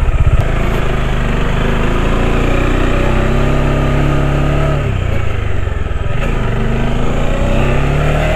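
Motorcycle engine running while riding, with a steady note that dips about five seconds in and then picks up again near the end, over a rush of wind and road noise.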